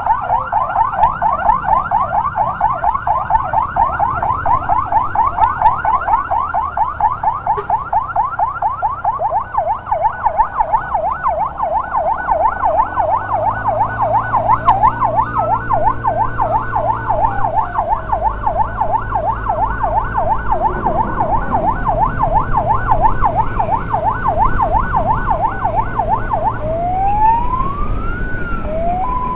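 Electronic siren of an ambulance escort motorcycle in a fast yelp, several quick rising-and-falling sweeps a second. A slower wail rises and falls over it for a few seconds midway. Near the end the yelp stops, two rising sweeps follow, and it switches to a two-tone hi-lo, with an engine running underneath through the second half.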